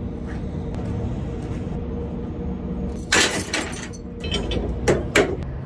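Semi truck's diesel engine idling steadily, with a short loud noisy burst about three seconds in and two sharp clanks near the end.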